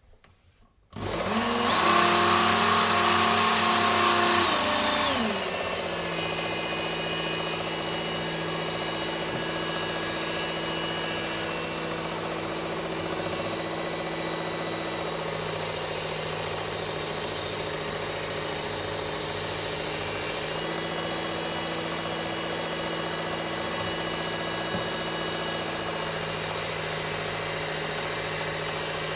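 Work Sharp Ken Onion belt sharpener with the blade grinding attachment switching on about a second in and spinning up. It runs loud for a few seconds, then drops to a lower, steady pitch and runs on while the axe edge is ground to remove the burr.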